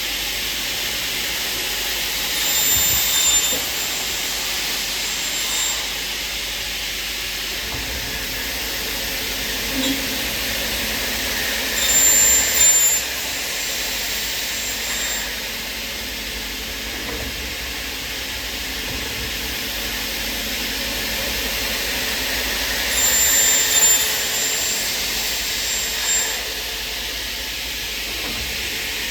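Automatic aluminum profile sawing, drilling and milling machine at work: a steady hiss with a louder, high-pitched cutting sound lasting a second or so, three times about ten seconds apart.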